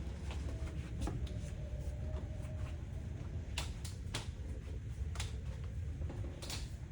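Scattered light clicks and knocks over a low steady rumble, in a small room.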